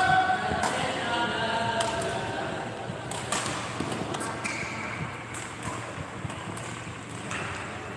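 Badminton rally: rackets striking the shuttlecock as a scattering of sharp hits, with voices calling in the background.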